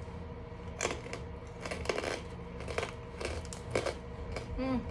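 Crisp dried Chinese jujube being bitten and chewed: a handful of sharp crunches spaced irregularly, with a short 'mm' near the end.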